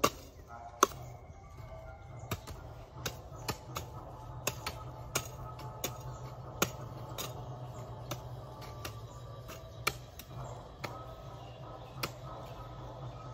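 Sharp taps or knocks repeating irregularly, about one or two a second, the loudest about a second in, over a low steady hum.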